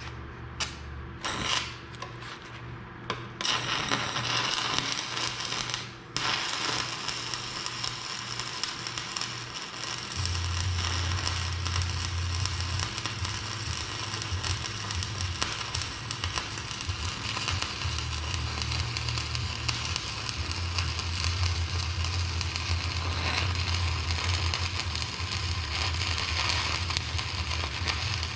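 Stick (SMAW) welding arc crackling steadily while new teeth are welded onto worn excavator bucket shanks. The first few seconds are short broken bursts as the arc is struck, with a brief break about six seconds in. A steady low hum joins about ten seconds in.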